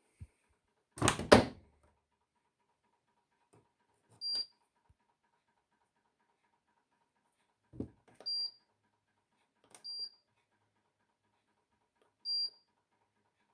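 A loud thump about a second in, then the Hoover DX C8TCE-80 tumble dryer's control panel giving four short, high beeps a few seconds apart, most of them just after the click of a button being pressed.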